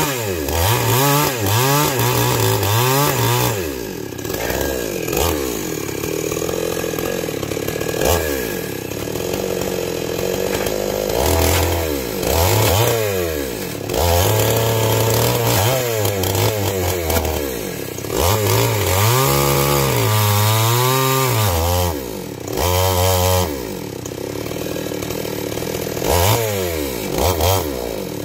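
Small two-stroke chainsaw cutting into a fallen tree trunk. The engine's pitch rises and falls over and over as it revs and slows under load in the cut.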